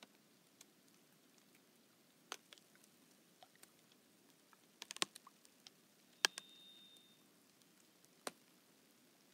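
Thin spring lake ice crackling as it thaws and shifts with a slight breeze: scattered sharp clicks and ticks, a quick cluster of them about five seconds in, and the loudest snap just after six seconds. A brief thin high tone lingers for about a second after that snap.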